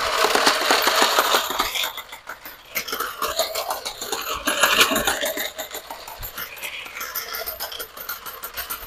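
An electric coin hopper paying out coins in a rapid stream: a dense run of clicks and clinks as coin after coin is kicked out and falls. It is loudest for the first two seconds, then carries on lighter.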